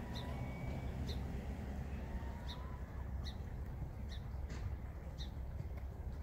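A bird giving short, high chirps, each dropping slightly in pitch, repeated roughly once a second over a steady low rumble.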